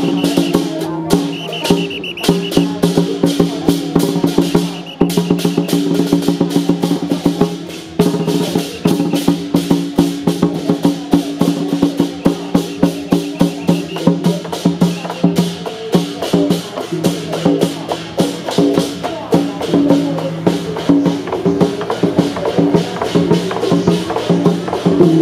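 Traditional temple percussion ensemble playing: a large barrel drum and gongs struck in fast, continuous strokes over steady, sustained ringing tones.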